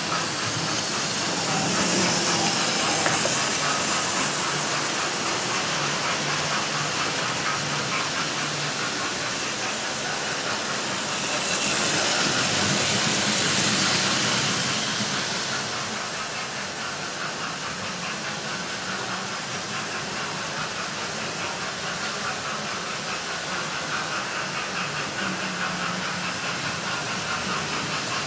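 Model railway trains running on the layout: wheels clicking over the rail joints and small motors running, under the steam hiss and chuffing of a sound-fitted model of GWR King class 6009 King Charles II. The noise swells briefly about two seconds in and again around twelve seconds as trains pass close.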